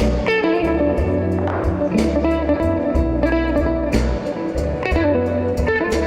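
Blues music: an instrumental passage of electric guitar lines over a bass line and a steady beat, with no singing.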